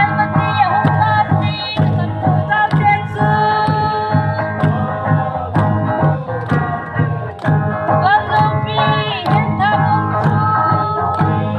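Dance music from an electronic keyboard with an organ-like sound: a held melody over a steady beat.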